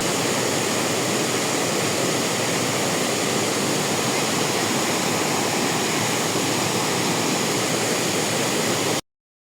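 Steady rushing roar of a large waterfall, with no rhythm or pitch to it, which cuts off abruptly about nine seconds in.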